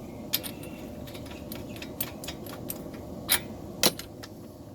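Small metal parts and tools clinking and clicking as they are handled, with scattered sharp clicks and two louder ones past the three-second mark.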